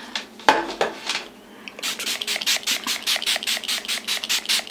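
Brisk rubbing strokes, about five or six a second, starting about two seconds in: hands rubbing quickly over skin.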